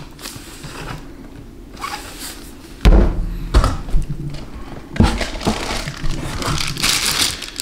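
Items being handled in a cardboard shipping box: two heavy thumps, about three seconds in and again about two seconds later, amid lighter knocks and shuffling, then plastic packaging rustling near the end.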